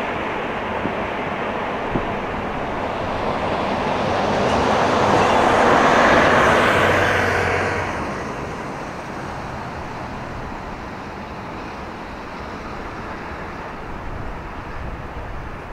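A motor vehicle passes close by: its noise swells over a few seconds, peaks with a low engine hum, and drops away quickly, over a steady background of traffic noise.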